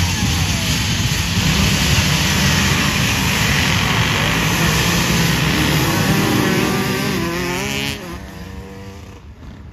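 Motocross bike engine running hard at high revs. Its pitch rises and falls a few times about six seconds in, then the sound drops away sharply near the end.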